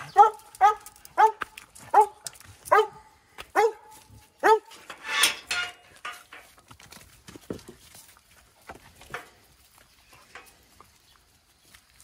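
A dog barking in a quick run of about seven barks, roughly two a second, stopping about four and a half seconds in; a short harsh rasping sound follows just after.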